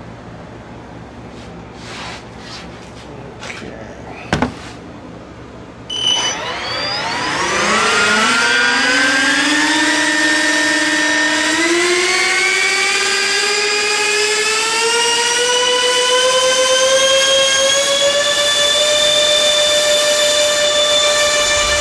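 Twin electric ducted fans of an E-flite F-15 RC jet, six-blade fans on BL420 brushless motors, spooling up on a static thrust test: about six seconds in a whine starts and rises in pitch, climbing slowly for about ten seconds before holding steady and loud. Before the spool-up there are a few faint clicks and one knock.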